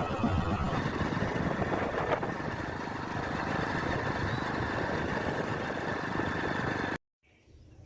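Motorcycle engine running while being ridden, a steady rough mechanical noise that cuts off suddenly about seven seconds in.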